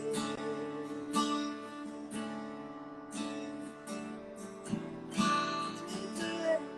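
Acoustic guitar strummed slowly, chords left ringing between the strokes, accompanying a worship song.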